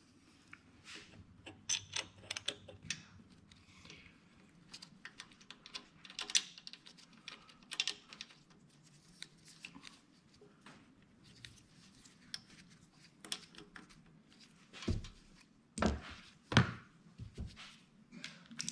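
Scattered light clicks and taps of small metal parts and tools being handled while a cover is screwed onto a small diesel engine's crankcase. A few louder knocks come about three-quarters of the way through.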